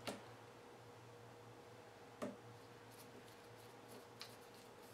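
Near silence with a few faint clicks, the clearest about two seconds in, as a scope-ring screw is turned with a T-handle torque driver, first backwards so the screw clicks down into the start of its threads and does not cross-thread.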